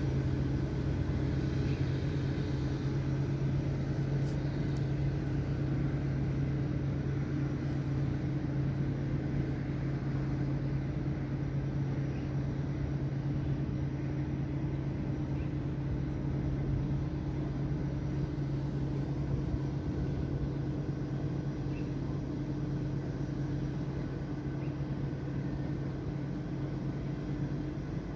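Steady low mechanical drone with a constant deep hum, like a running engine, unchanged throughout.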